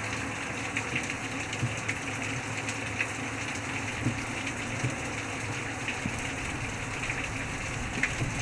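Steady rain falling, with occasional sharp taps of drops striking.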